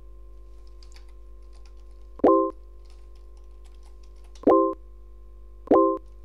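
Chat website's message alert, a short chime of a few stacked tones, sounding three times as messages are sent and received. Between the chimes come faint clicks of typing on a computer keyboard over a steady hum.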